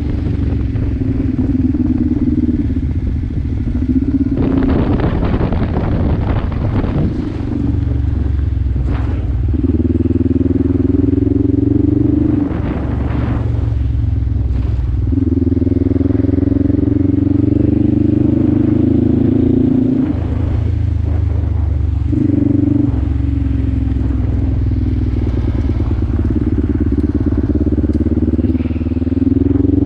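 Kawasaki KLE 500's parallel-twin engine running as the bike is ridden, its pitch climbing in several long pulls under throttle and dropping back between them. Wind rushes across the microphone now and then.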